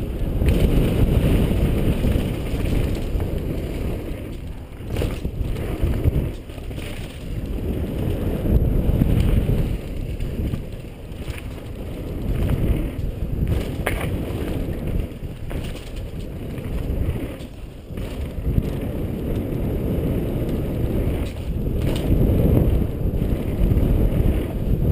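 Mountain bike descending fast on a dirt and paver trail: steady tyre rumble and rattle with wind buffeting the helmet camera's microphone, and a few sharp knocks from bumps.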